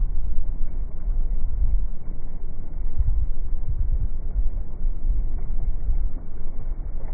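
Wind-driven sea waves crashing against a sea wall, heavily mixed with wind rumbling on the microphone; the rumble surges about three to four seconds in.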